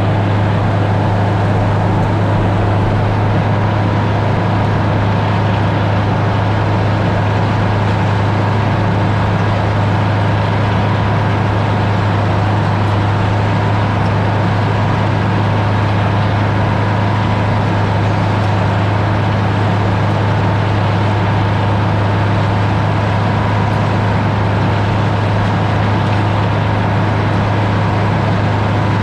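Sawmill engine running at a constant speed: a loud, unchanging low drone with a steady hum.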